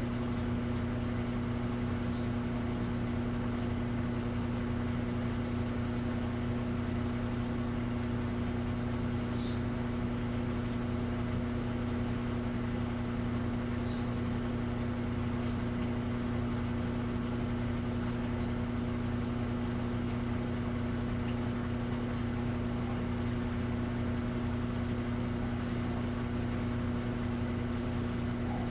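Electrolux Essential Care 11 kg washing machine running with a steady mechanical hum, one constant tone over a low drone. Four short high chirps sound in the first half.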